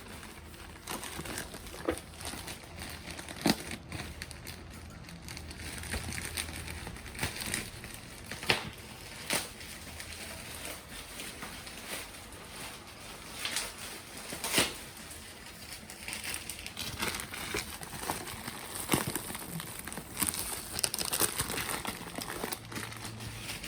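Packaging crinkling and rustling as a parcel is unwrapped by hand, with scattered sharp crackles and snaps.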